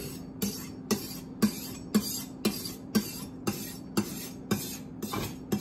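Chef's knife blade scraping across a sharpening stone in short, straight pushing strokes, about two a second, each a gritty rasp. These are finishing strokes made at a held angle to pull the wire burr off the edge.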